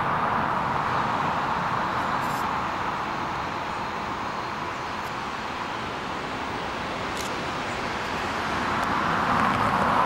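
Air Canada Boeing 787's jet engines running at idle thrust as it taxis past, a steady whooshing hum that grows louder near the end as the aircraft draws closer.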